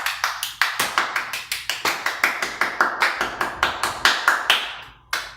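Rhythmic hand clapping, about four to five claps a second, fading off after about four and a half seconds, then one last clap near the end.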